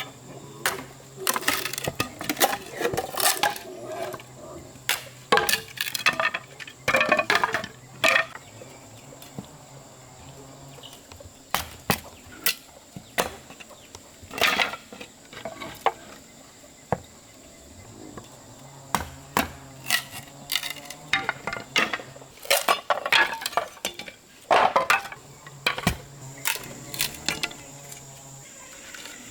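Hard objects knocking and clinking together in an irregular run of sharp hits, some with a brief ring, over a faint steady high-pitched whine.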